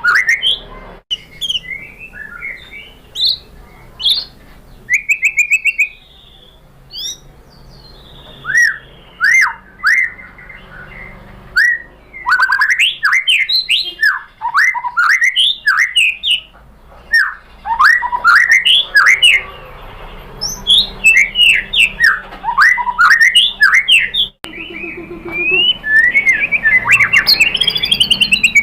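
White-rumped shama singing: loud, rapid, varied whistled phrases of sharply rising and falling notes and chirps, delivered in clusters with brief pauses.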